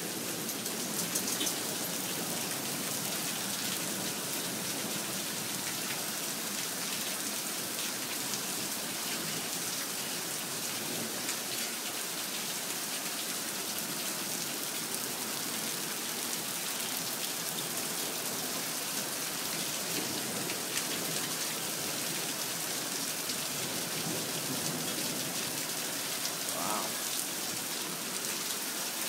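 Heavy rain pouring down in a steady, even hiss, the downpour of a desert flash flood.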